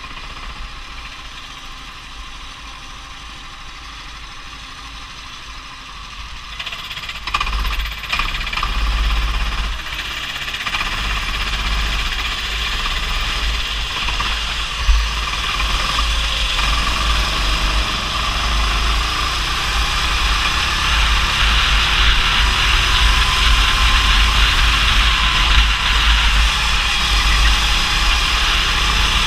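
Go-kart engine running as the kart laps the track, with tyre and rumble noise. It is quieter for the first several seconds, then grows louder from about seven seconds in and stays loud.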